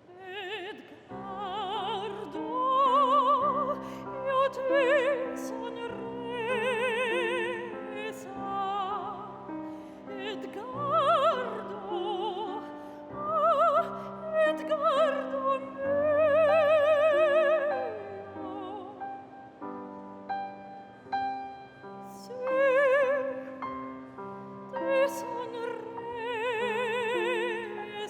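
Operatic singing with a wide vibrato on long held notes, over piano accompaniment; it starts about a second in.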